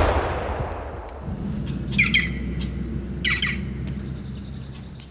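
The echo of a gunshot rolling away and fading, followed by two harsh, squawking bird calls about two and three seconds in, each falling in pitch.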